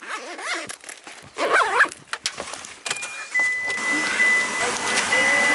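Handling and rustling at first, then about three seconds in a car's running noise sets in: a steady hiss with a thin, steady high whine, a low rumble joining near the end.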